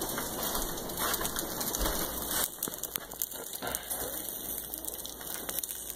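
Steady rain falling, an even hiss with scattered small ticks. It is heavier for about the first two and a half seconds, then lighter.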